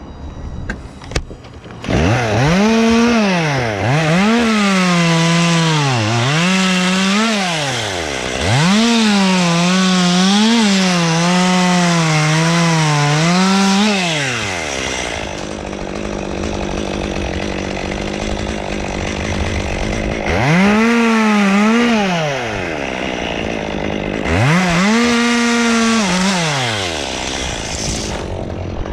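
Chainsaw running at full throttle through pine wood, its pitch sagging and recovering again and again as the chain bites. There is one long cut starting about two seconds in, a stretch of lower, steadier running, then two shorter revs near the end.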